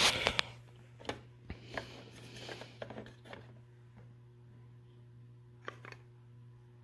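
Clear plastic display cases of N scale model freight cars being handled: a rubbing scrape at the start, then scattered clicks and taps as the cases knock together and one is picked up. A steady low hum runs underneath.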